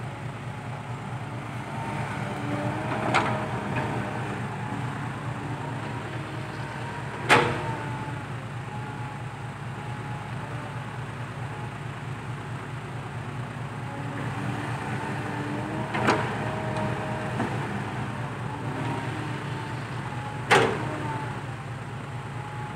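A Kobelco SK120 Mark III excavator's diesel engine runs steadily under load, with its hydraulic whine rising and falling as the machine works. Four sharp knocks break through, the loudest about seven seconds in.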